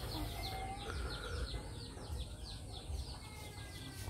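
Farmyard ambience of birds chirping, a steady run of quick high chirps several a second, with chickens clucking faintly in the background.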